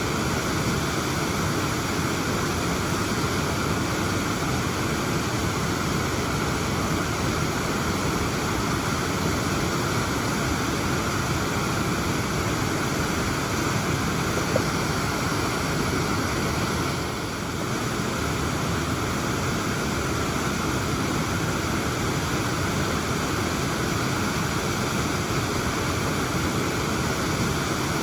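Waterfall pouring steadily, a dense, even rush of falling water.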